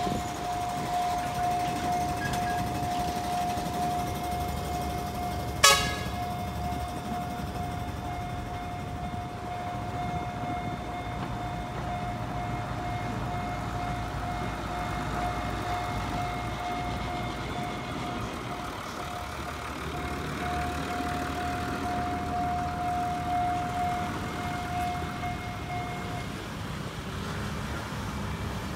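TSR Diema diesel locomotive and railcar moving slowly across a level crossing, a low engine rumble under a steady high warning tone that stops near the end. A single sharp crack about six seconds in.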